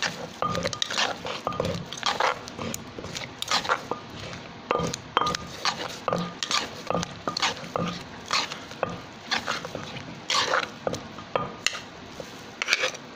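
A wooden pestle pounding and a spoon scraping in a mortar, mixing a wet tomato-and-chilli som tam dressing with the sauce just added: a run of irregular knocks, a few each second.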